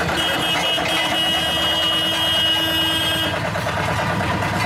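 Dynapac CC102 tandem road roller's diesel engine running steadily as the roller drives off. A steady high-pitched tone sounds over it for about three seconds, then stops.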